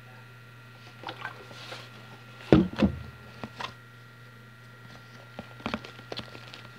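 A plastic bottle and a plastic tub handled on a tabletop: scattered taps and knocks, the loudest a double knock about two and a half seconds in.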